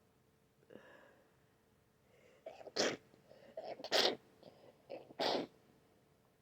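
A person with a cold sneezing three times in quick succession, about a second apart, with short sharp intakes of breath before and between the sneezes.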